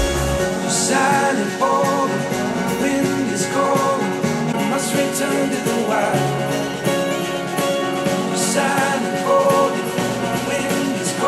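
A song with singing, played back through a pair of studio monitors and picked up by a microphone in the room. It is heard first on Tannoy Gold 8 monitors, then on Yamaha HS8 monitors.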